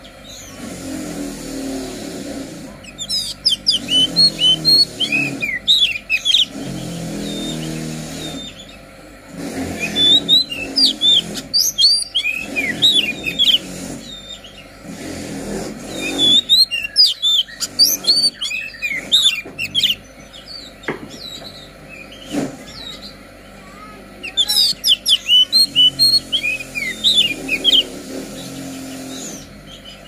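Oriental magpie-robin (kacer poci) in full song: four bouts of rapid, sharp chirps and whistles, each a few seconds long, over a lower, uneven rumble.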